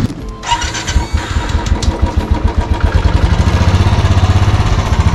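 Royal Enfield Classic 350 single-cylinder engine starting about half a second in, then idling with a steady, even low beat.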